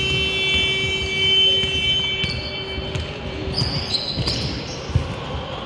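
A basketball bouncing on a hardwood gym court, with a steady high-pitched tone that stops about halfway through and a few short high squeaks after it.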